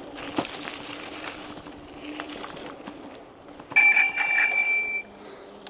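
A handlebar bicycle bell rung once, ringing for about a second near the end, as a warning to people ahead on the trail. Light riding noise and a click are heard before it.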